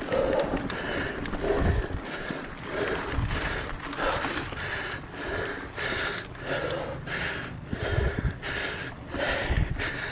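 Mountain biker breathing hard and rhythmically, about three breaths every two seconds, over mountain bike tyres rolling on a leaf-covered dirt trail, with occasional low thumps.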